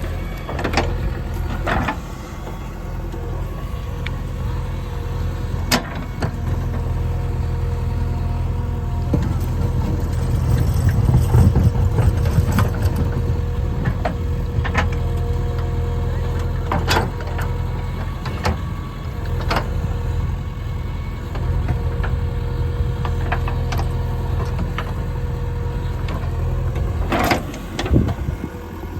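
JCB 3DX backhoe loader's diesel engine running steadily, working harder for a couple of seconds around the middle, with scattered sharp knocks and clanks as stones are dug out and moved.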